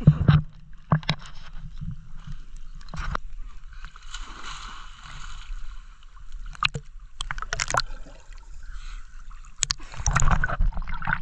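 River water splashing and sloshing as someone swims, with irregular sharp splashes, the biggest near the start and again near the end, over a low steady wash of moving water.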